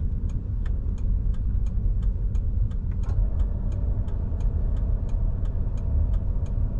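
Turn-signal indicator clicking steadily inside a vehicle's cabin, about three clicks a second, over the low rumble of the engine.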